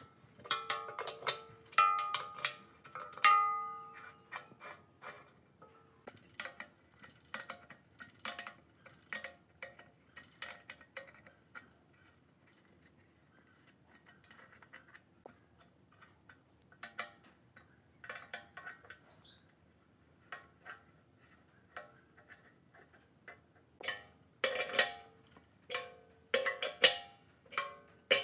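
A steel wrench clinks and taps against rusted iron pipe fittings on an air compressor tank as they are worked loose. The sharp metallic knocks ring briefly. They come in quick clusters at the start and again near the end, with sparser taps in between.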